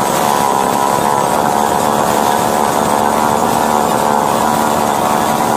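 Freshly repaired petrol two-stroke chainsaw engine running steadily at an even speed, with its silencer not yet fitted. It runs well after the starting-problem repair.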